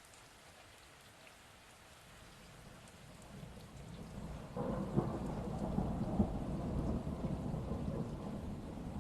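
Steady rain falling, with a roll of thunder that builds about three seconds in, peaks in the middle with a sharp crack, and rumbles on slowly fading.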